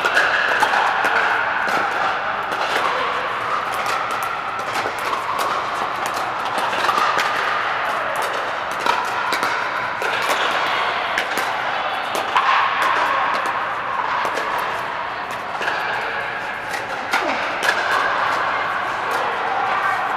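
Pickleball paddles striking hard plastic balls: many sharp pops from several courts at once, coming irregularly, over a steady background of many voices in a large air-supported dome.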